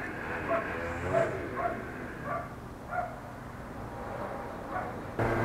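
A dog barking: a string of short barks spaced under a second apart, thinning out after about three seconds.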